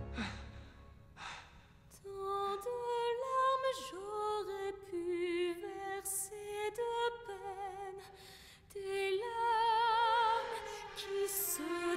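A woman singing a slow, held melody with strong vibrato, beginning about two seconds in after a near-quiet pause, with a short break between phrases around two-thirds of the way through.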